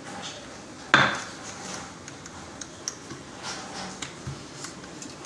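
Kitchen utensils and dishes clattering: one sharp knock with a brief ring about a second in, then scattered light clicks and taps.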